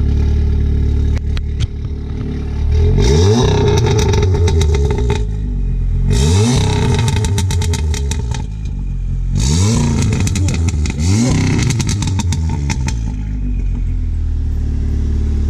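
Volkswagen Golf 7 R's stage-2 tuned, decat 2.0 TSI turbo four-cylinder idling, then revved hard about four times while standing, heard at the tailpipes. After each rev it drops back with a run of crackles and pops from the exhaust, the pop-and-bang from its remap.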